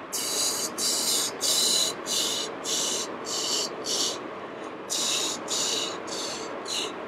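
Rhythmic hissing whooshes made with the mouth, about two a second with a brief pause past the middle, imitating a strong gust of wind.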